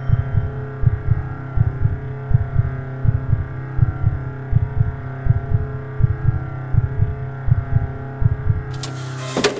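Horror film score: a low, heartbeat-like double thump repeating a little faster than once a second over a steady, sustained drone. In the last second a harsh swell of noise builds up and then cuts off suddenly.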